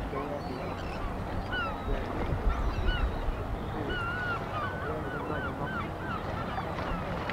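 Gulls calling over and over in short, curving cries, over a steady low rumble that swells briefly about two and a half seconds in.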